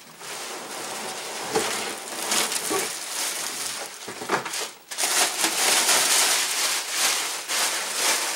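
Clear plastic packaging bag crinkling and rustling as it is handled and pulled off a boxed lawn vacuum. It briefly drops off about five seconds in, then gets louder.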